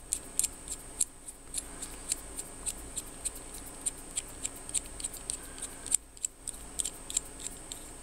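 Small irregular metallic clicks and ticks, about three or four a second, from a silver-plated PL-259 (UHF) coax connector being handled and turned in the fingers, over a steady faint high whine.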